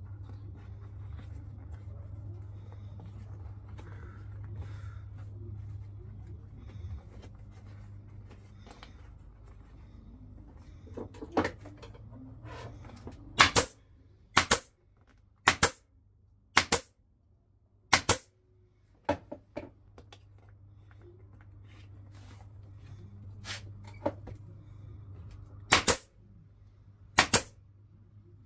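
A small air compressor hums steadily, cutting off about halfway and starting again later. A pneumatic staple gun fires a string of sharp shots, about one a second, with a pause before the last few, driving staples through the vinyl seat cover into the golf cart seat pan.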